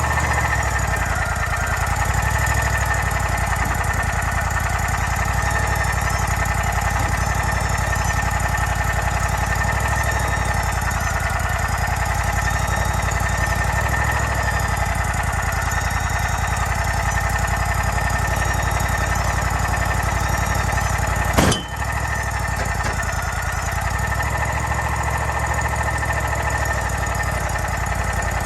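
Portable sawmill's gasoline engine running steadily, with one sharp click about three quarters of the way through.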